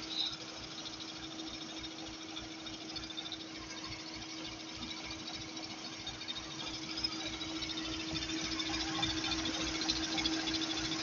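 Peugeot 207 1.4 VTi four-cylinder petrol engine idling, with a rapid low pulsing, a steady whine and fine ticking over it; the sound grows louder from about halfway. The idle is unstable and carries a strange noise, which the owner cannot explain.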